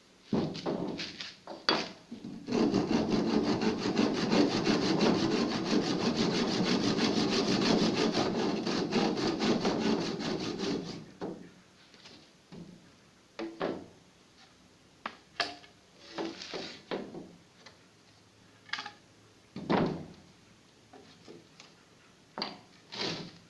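Hand saw worked in steady, rapid rasping strokes for about eight seconds, then a few short scrapes and knocks.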